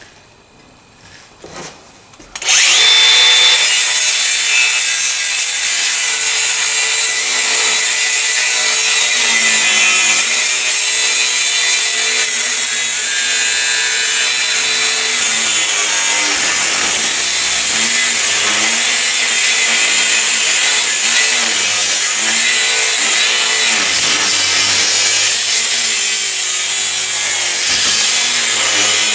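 Angle grinder with a cutting disc cutting through steel. It starts about two and a half seconds in after a few light knocks, then runs loud and continuous, its pitch wavering as the disc bites into the metal.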